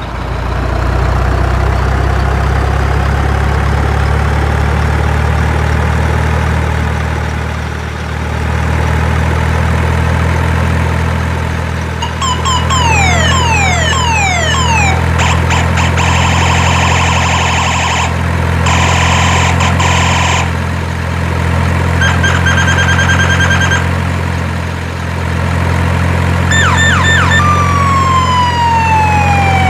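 A steady low drone, with an electronic siren joining about halfway through. The siren plays a run of quick falling sweeps, then stretches of fast-pulsing steady tones, and near the end one long falling wail that swings back up.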